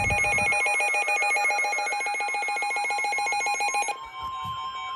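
Electronic alert tone trilling rapidly and evenly between a low and a high pitch for about four seconds, then cutting off. A steady single-pitched tone follows, a weather-radio warning alarm tone, ahead of a National Weather Service warning.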